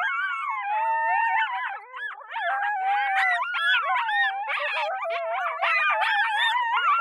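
Several canines howling together: overlapping, wavering howls that slide up and down in pitch, mixed with quick yips.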